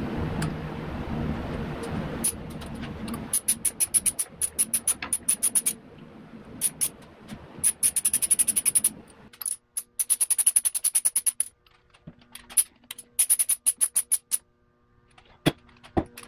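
Hand ratchet wrench clicking in quick runs of rapid clicks, several bursts with short pauses between, as the banjo bolt of an oil line is run into the engine's cylinder head. A steady rushing noise fills the first three seconds or so.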